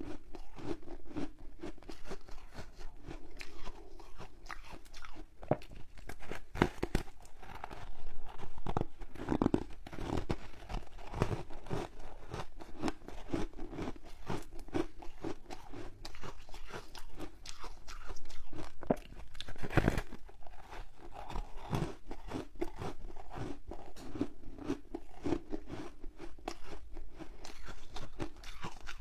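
Passion-fruit ice foam being bitten and chewed: a continuous run of crisp, crackly crunches as the frozen foam breaks up in the mouth, with a few louder bites around a third and two thirds of the way through.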